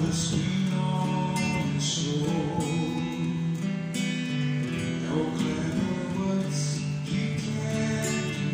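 Acoustic guitar strummed through a run of chords, with a man singing along.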